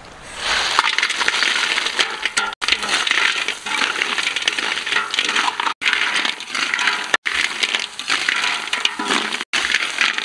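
Snails in their shells and pieces of fish tipped into a hot wok of frying herbs and chili about half a second in, then stirred: shells clattering and rattling against the metal wok over a loud sizzle.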